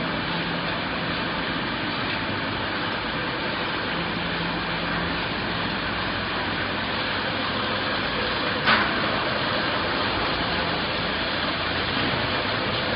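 Steady running noise of a bag-palletizing line, its roller conveyors and palletizing robots working, with a faint steady hum. A single sharp knock about nine seconds in.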